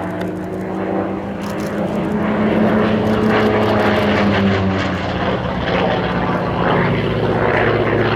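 Radial-engined propeller warbird flying by, its piston engine note growing louder over the first few seconds and then holding steady.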